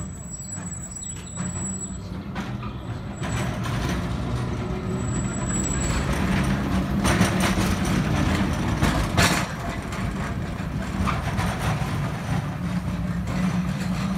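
Electric tram with a trolley pole passing close by, a low rumble of its wheels on the rails that builds to its loudest as it goes past, with a sharp clank a little after the middle.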